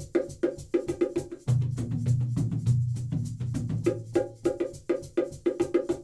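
Instrumental music with quick, sharp clicking percussion over short pitched notes. A sustained low bass comes in about one and a half seconds in.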